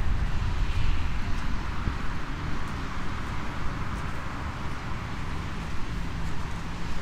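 Outdoor street ambience: wind rumbling on the microphone over a steady hiss of road traffic, slowly fading.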